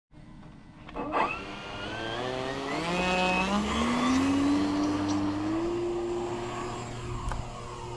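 Radio-controlled model Cessna 208 Grand Caravan's motor and propeller throttling up for the takeoff roll. The pitch rises for several seconds from about a second in, then holds steady and grows a little quieter as the plane moves away.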